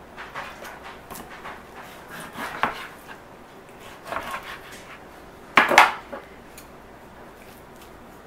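Chef's knife cutting raw pork on a wooden cutting board, with scattered knocks and taps of the blade and handling on the board; the loudest is a short cluster of knocks about five and a half seconds in.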